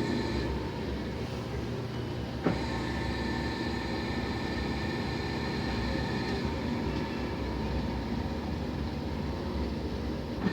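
LG washing machine running with a steady whine made of several held tones over a low rumble, and a single click about two and a half seconds in. The owner finds this background noise unpleasant and doubts it is normal.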